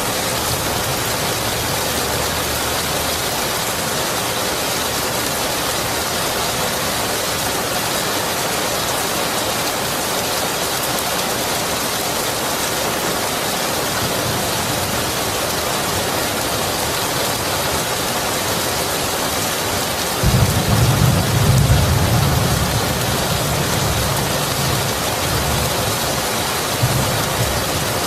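Steady heavy rain, with a roll of thunder that breaks in suddenly about two-thirds of the way through, rumbles for a few seconds and trails off.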